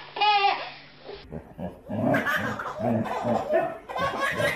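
A baby laughing in short bursts, then, after a cut, a dog's woofs and play noises mixed with laughter.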